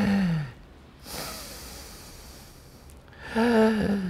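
A man demonstrating a swimmer's breath: an audible breath drawn in through the mouth and let out through the nose. Short voiced hums come at the start and again near the end, with a long breathy stretch between.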